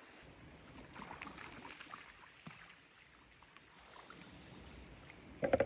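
Hooked brown trout splashing at the surface of a shallow stream as it is played in on a fly line, over the steady run of the water. A short, louder burst comes near the end.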